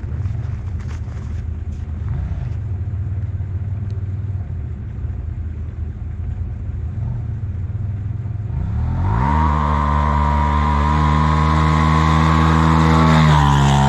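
Polaris RZR Turbo S side-by-side, fitted with a Stage 6 big-turbo kit, accelerating hard: after a low rumble, the engine note climbs steeply about eight and a half seconds in. It then holds at high revs and grows louder as the machine approaches, and drops off sharply near the end.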